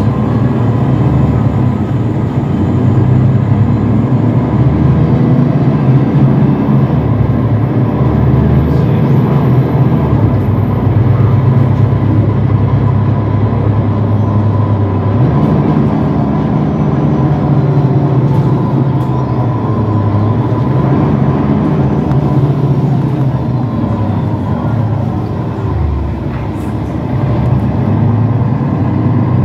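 Mercedes-Benz Citaro city bus heard from inside the passenger cabin while driving: a steady low engine and drivetrain hum with road noise. The engine note shifts a couple of times, and near the end it eases off briefly, then picks up again.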